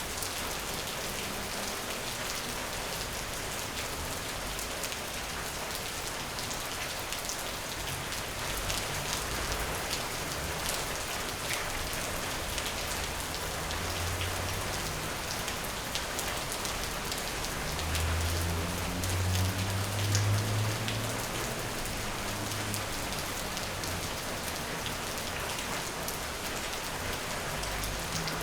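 Steady rain falling on a hard surface, a continuous hiss with many distinct drop ticks. A low rumble swells briefly past the middle.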